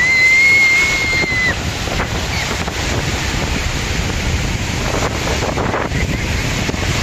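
Sea waves washing in with wind buffeting the microphone, a steady rushing noise heavy in the lows. At the very start a single high whistle-like tone holds steady for about a second and a half.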